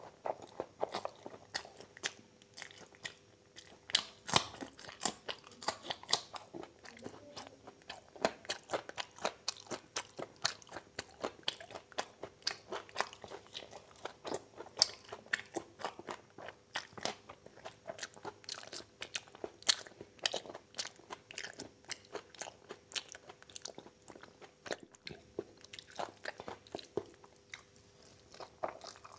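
Close-miked chewing and mouth smacking of a person eating egg chicken chow mein and oily mutton fat curry by hand: a dense, irregular run of sharp clicks.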